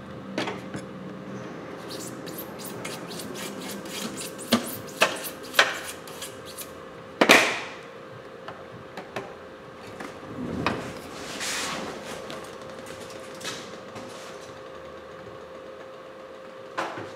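Handling noises at a workbench as a phone is turned over and set aside: a quick run of small clicks and taps, a few sharper knocks, and two louder rubbing swishes, over a faint steady hum.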